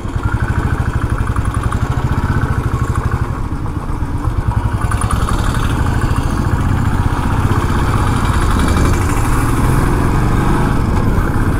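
Motorcycle engine running steadily under load as it climbs a steep hill road, its firing heard as a rapid, even beat.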